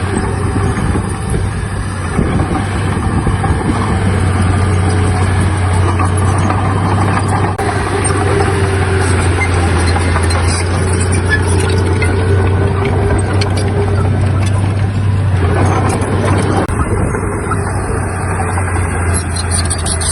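Heavy diesel earthmoving machinery running steadily, with a deep engine hum and a few scattered knocks.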